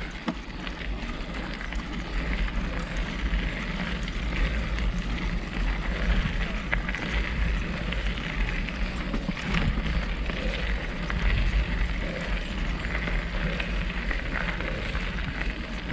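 Mountain bike rolling along a dirt forest trail, picked up by a handlebar-mounted action camera: steady wind rumble on the microphone over continuous tyre noise from the dirt and gravel.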